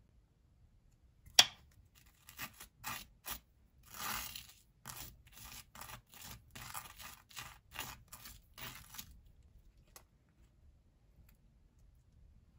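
A sharp click, then about seven seconds of short, scratchy tearing sounds in quick strokes that stop before the end.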